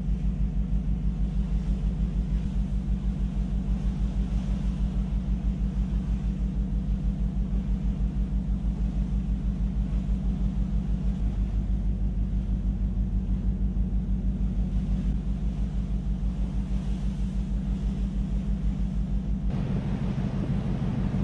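Ship's engine running: a steady low hum with a fast, even throb. Near the end a rushing hiss of wind joins it.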